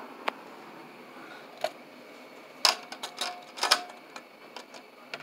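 Handling noise: a handful of sharp plastic clicks and taps, scattered irregularly over a few seconds, with the thickest cluster near the middle.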